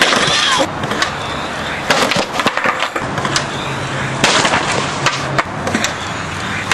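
Skateboard wheels rolling over rough concrete, with sharp clacks of the board as the skater rolls up to a big stair set and pops off it.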